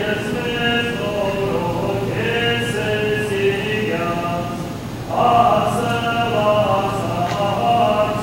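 Unaccompanied Armenian church chant sung by several voices, with long held notes; a louder new phrase begins about five seconds in.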